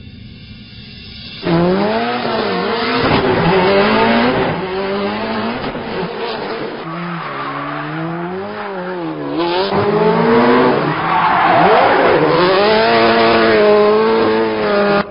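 Subaru Impreza rally car's turbocharged flat-four engine revving up and down over and over as the car drifts, with tyres squealing and skidding on concrete. It starts suddenly about a second and a half in.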